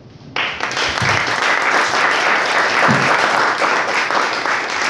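Audience applauding, starting suddenly just after the talk ends and going on steadily, with a few voices mixed in.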